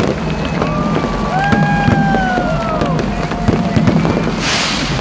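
Fireworks going off overhead, a run of sharp pops and crackles over a steady low rumble, with a short hiss about four and a half seconds in. Through it runs a pair of high held tones that drop in pitch at their ends.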